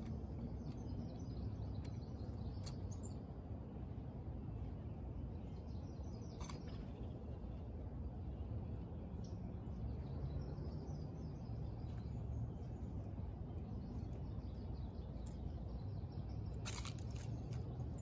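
Faint, scattered songbird chirps over a steady low outdoor rumble, with a few sharp ticks, a short cluster of them near the end.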